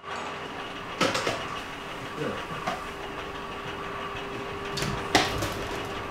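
A steady mechanical hum with sharp knocks and clatter, loudest about a second in and again about five seconds in.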